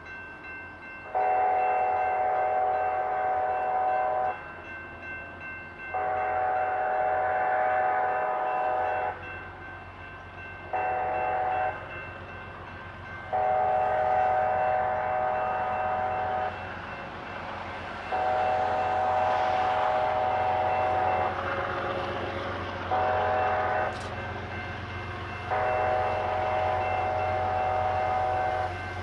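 BNSF freight locomotive's multi-chime air horn blowing the grade-crossing signal, long, long, short, long, then starting the pattern again. A low rumble of the approaching train builds under it.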